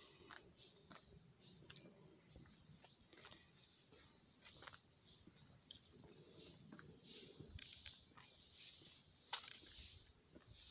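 Steady high-pitched drone of an insect chorus from the surrounding forest, with faint scattered crunches of footsteps on the dirt track.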